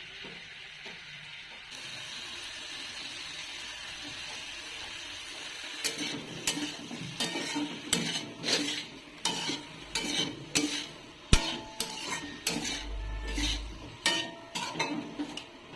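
A pea and cauliflower sabzi sizzling steadily in a pan, then, from about six seconds in, being stirred with a utensil that scrapes and knocks against the pan in repeated strokes, with one sharp clink near the middle.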